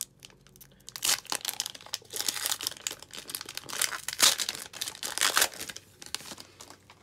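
A foil trading-card pack being torn open and crinkled by hand, a run of sharp crackles starting about a second in and stopping near the end.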